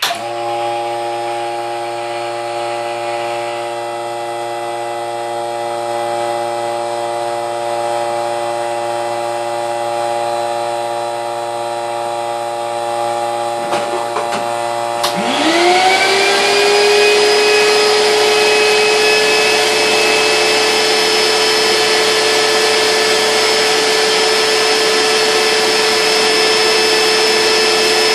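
A steady machine hum of several even tones, then the clatter of the heated plastic frame being pulled down onto the vacuum former's platen about halfway through, followed at once by a shop vac switching on, its whine rising as the motor spins up and then running steadily and louder, drawing the softened plastic down over the mold.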